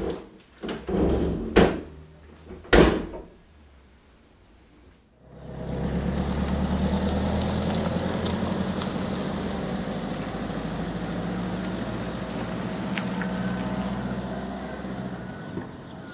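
Door knocks and bangs, two of them loud, in the first three seconds. After a short quiet, a small car's engine comes in about five seconds in: a Fiat Panda running steadily as it drives slowly along a dirt street.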